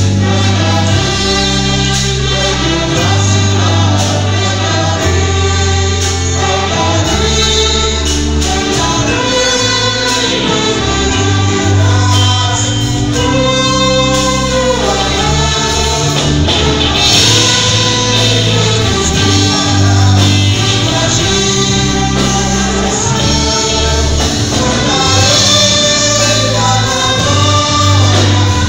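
A choir singing a gospel hymn over instrumental backing, with a bass line of held low notes that change every second or two.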